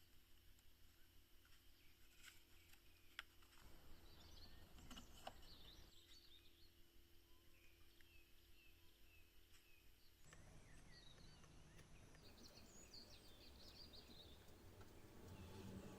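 Near silence: faint background ambience with soft, scattered bird chirps and a couple of light clicks.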